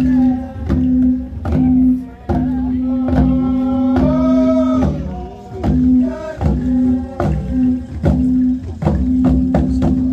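A group of voices chanting a traditional song while kundu hourglass drums are beaten in a steady rhythm of sharp strikes.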